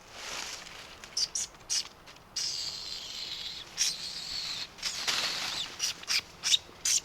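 Crunching and rustling of dry leaf litter in uneven bursts, with sharp crackles between, as of footsteps moving through dry leaves.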